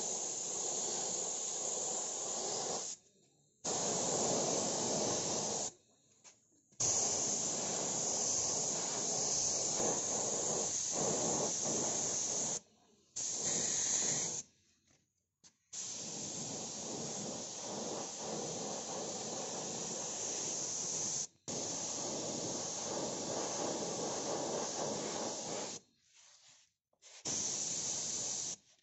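Aerosol spray-paint can spraying in about seven hissing bursts, each one to several seconds long, that start and stop abruptly with short gaps between them.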